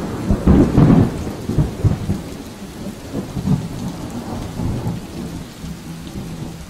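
Thunder rumbling over steady rain, loudest at the start and slowly fading away.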